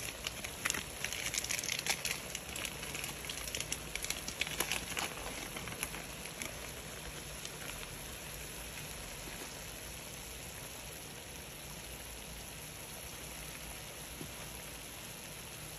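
Chicken pieces sizzling in oil and a little water in a stainless steel pot, with crackling pops over the first several seconds that settle into a steady soft hiss.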